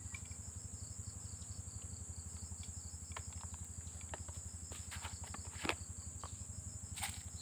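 Steady chirping of insects such as crickets over a low, fast throb, with scattered small clicks and crackles from hands snapping fresh chili peppers into a wooden bowl and handling a small plastic container, the sharpest click about two-thirds of the way through.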